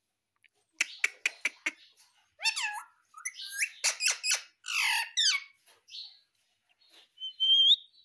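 Indian ringneck parakeet calling: a quick run of sharp clicks about a second in, then a busy string of squawks, chirps and warbling calls, and a short rising whistle near the end.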